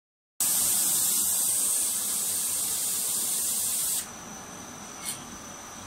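Spray gun of an automatic wood-spindle spray-painting machine hissing steadily, then cutting off suddenly about four seconds in. What remains is a quieter steady machine hum with a thin high whine.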